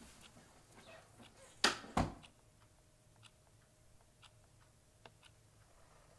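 A door shuts with two sharp knocks in quick succession. Then a clock ticks faintly, about once a second.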